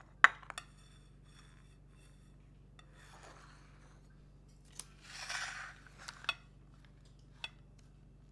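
Kitchen handling sounds: a few sharp clicks and knocks, the loudest just after the start, two soft scraping rustles in the middle, and more light clicks, over a faint low hum.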